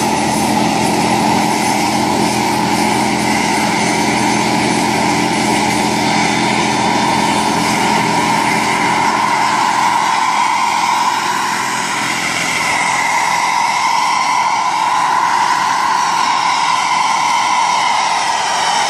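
Large radio-controlled scale helicopter running steadily as it lifts off and flies low: a continuous whine of its motor and spinning rotor, dipping slightly in loudness about halfway through.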